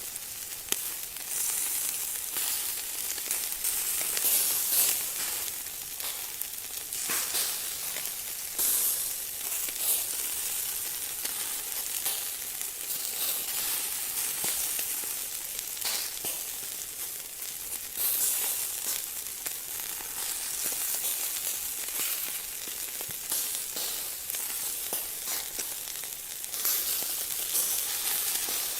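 Food sizzling and crackling on high heat, a steady hiss that surges louder now and then.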